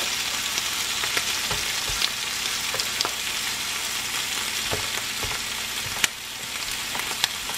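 Ham slices and almond-flour bread sizzling on a hot electric griddle, with a few short clicks and scrapes of a spatula turning the bread.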